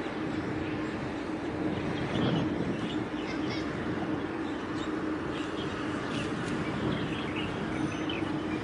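Steady low hum and drone from a large cargo ship's engines as it passes close by, with small birds giving short high chirps now and then over it.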